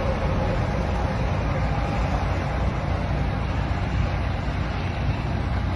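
Steady highway traffic noise: a low rumble of idling engines from the stopped vehicles mixed with traffic on the road, at an even level.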